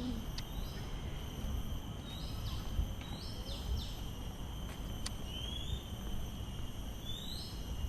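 Birds giving short calls again and again, several of them quick rising notes, over a steady high-pitched insect drone and a low outdoor rumble.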